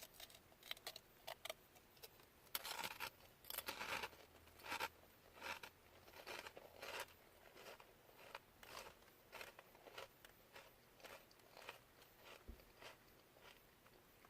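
Someone chewing Munchos potato crisps: a run of short, crisp crunches at an uneven pace, loudest and closest together in the first five seconds, then fainter and sparser.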